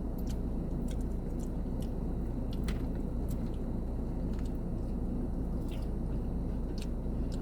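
Close-miked chewing and mouth sounds of someone eating, with scattered soft clicks over a steady low hum.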